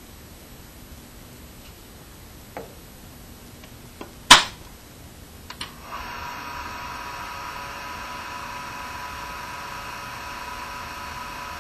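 A sharp click, then a couple of lighter clicks, and a small electric motor starting up and running steadily with a thin whine.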